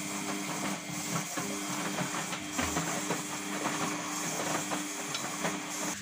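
Samsung WF6520N7W washing machine's drain pump running with a steady hum and a hiss of water, emptying the wash water at the end of the wash.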